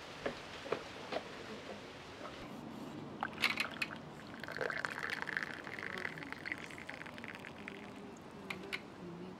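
Hot tea pouring in a thin stream from the tap of a stainless-steel samovar into a glass mug, strongest around the middle and thinning out near the end. A few light clicks come before the pour.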